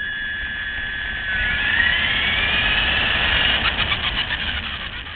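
LaTrax RC car's electric motor whining: a steady high tone, then a second whine that rises in pitch about a second and a half in and stays high as the car gathers speed.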